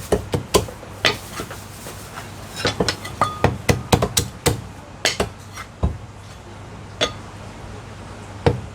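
Cleaver chopping roast meat on a wooden chopping block: a string of sharp, irregular chops, some in quick runs of two or three, over a steady low hum.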